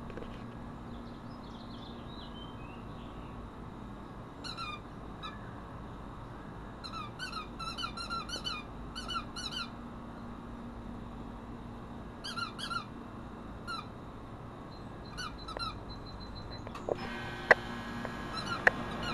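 A dog's squeaky toy squeaking in quick runs of short, high squeaks as the dog bites down on it. There are pauses between the runs, and two sharp clicks near the end.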